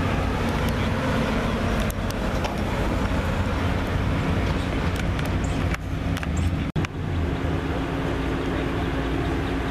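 A car engine running steadily at idle, a low even rumble. The sound cuts out for an instant about seven seconds in.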